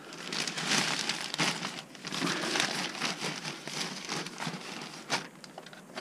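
Thin plastic bag crinkling and rustling as it is pulled off a robot vacuum cleaner, with a sharp click about five seconds in.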